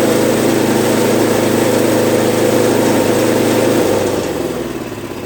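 Troy-Bilt snowblower engine running steadily, then dropping to a lower, quieter run about four seconds in.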